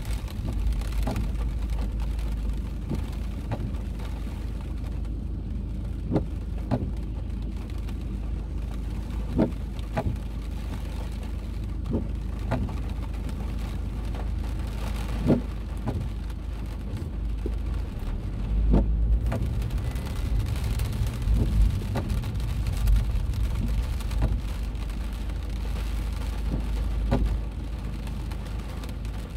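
Inside a car in heavy rain: a steady low rumble of the car, with scattered single taps of raindrops striking the windscreen and roof.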